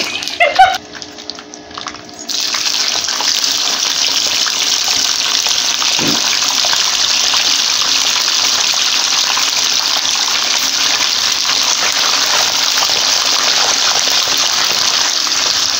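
Whole tilapia frying in hot oil in a non-stick pan over high heat: a loud, steady sizzle that starts suddenly about two seconds in.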